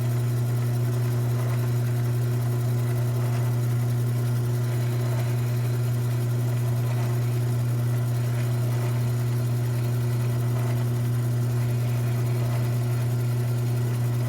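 Mini lathe's electric motor running steadily with a strong, even hum while drilling a hole.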